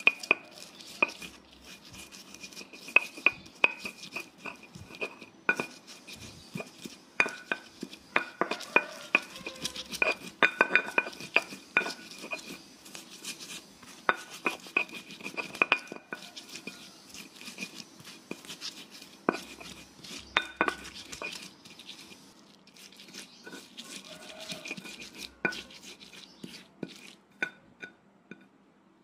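Stone pestle pounding and grinding a spice paste of chillies, shallots and garlic in a stone mortar (Indonesian cobek and ulekan): irregular sharp knocks of stone on stone mixed with grinding scrapes.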